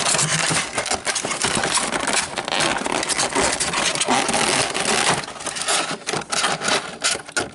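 Close crinkling and rustling of packaging with small clicks and knocks as things on the desk are handled and moved about, dying away near the end.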